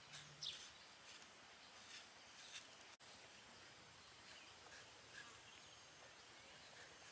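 Near silence: faint outdoor background with a few short faint chirps and ticks, and a brief dropout about three seconds in.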